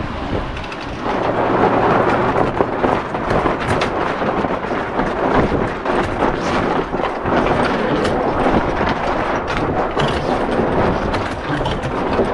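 Strong wind buffeting the microphone over water rushing and splashing along a Catalina 22 sailboat's hull in gusty, choppy conditions. A loud, rough noise with frequent sharp crackles, swelling about a second in.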